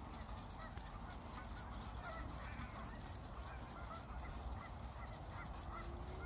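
Geese honking, many short overlapping calls, over the rapid, evenly spaced ticking of impact sprinklers watering a field.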